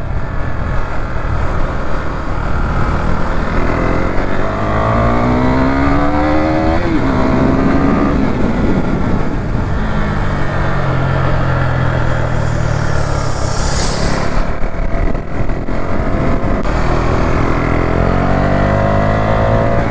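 KTM motorcycle engine under way, accelerating: the pitch climbs steadily and then drops sharply on an upshift, and later climbs again. About two-thirds of the way through there is a short burst of hissing rush.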